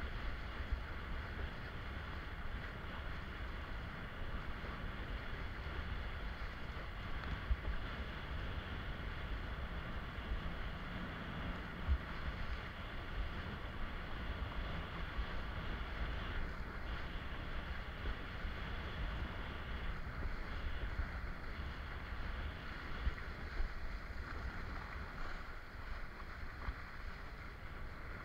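Steady wind rumble on the microphone mixed with water rushing and slapping under a kiteboard as it planes across choppy sea, with a few brief thumps from the board hitting chop.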